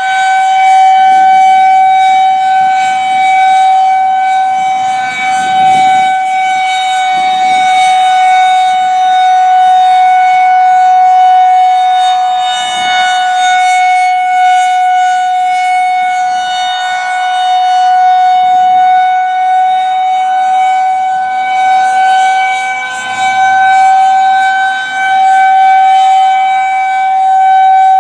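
Federal Signal 2001-130 rotating electromechanical outdoor warning siren sounding a steady, unwavering tone at full speed. Its loudness swells and fades every few seconds as the rotating head sweeps past and away.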